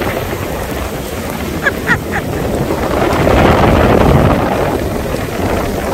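Sea surf breaking on the beach, with strong wind buffeting the microphone. A wave's rush swells about three seconds in and eases off a second or so later.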